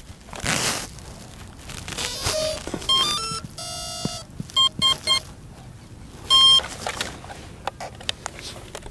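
A homemade quadcopter's brushless motors beep through their ESCs as they power up on a freshly connected battery. There is a quick rising run of tones, then a held tone, then a few short beeps and one longer beep: the ESCs' start-up and ready signal.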